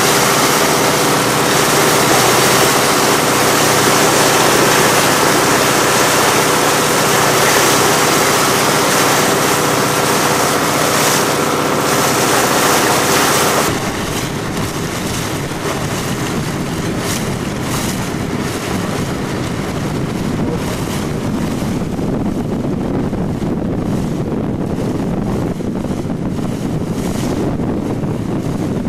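A boat's engine running at a steady pitch, with wind and water rushing past. About halfway through, the engine hum cuts off abruptly, leaving wind buffeting the microphone over the sound of water.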